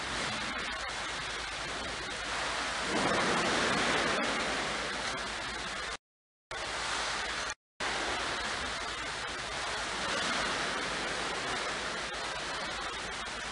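Steady rush of running water and aeration in clam hatchery tanks, swelling a little twice, with the sound cutting out briefly twice just after the middle.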